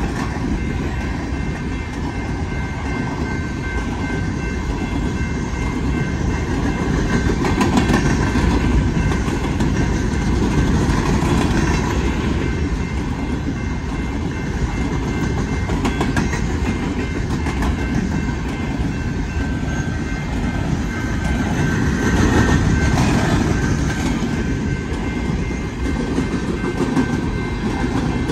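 Empty coal cars of a freight train rolling past at a grade crossing: a steady rumble of steel wheels with a clickety-clack over the rail joints. It swells louder about eight seconds in and again past twenty seconds.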